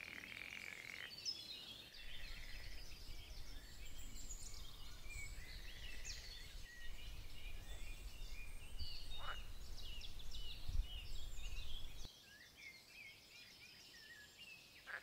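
Several birds chirping and trilling. A frog's pulsed croak sounds in the first second, and a low rumble runs from about two seconds in until about twelve.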